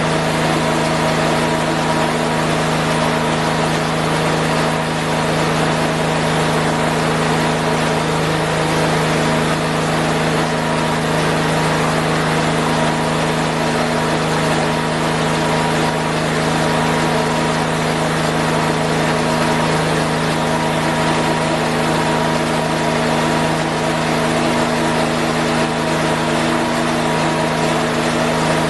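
Garden tractor engine running at a steady, constant speed.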